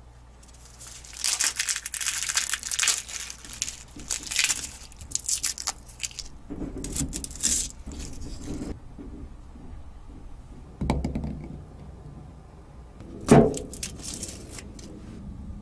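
A garlic bulb broken apart and its dry papery skin peeled and rubbed off a clove by hand, a crackly tearing rustle. A dull knock about eleven seconds in, then a sharp, louder knock near the end as a knife strikes the plastic cutting board at the clove.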